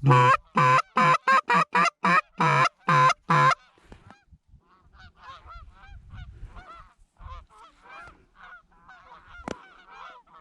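About nine loud honks in quick, even succession from a goose call blown by a hunter, followed by the fainter, scattered honking of a flock of geese calling back for the rest of the time, with a single sharp click near the end.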